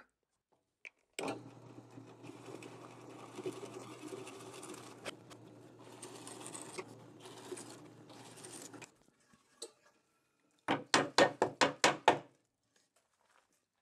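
Drill press running steadily with a low motor hum as a 1-inch Forstner bit bores holes in a pine 2x4. Near the end comes a quick run of about eight sharp knocks.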